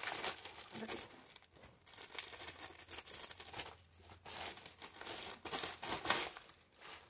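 Plastic mailer bag being cut open with scissors and torn, crinkling in irregular rustles as it is handled, loudest near the start and again about six seconds in.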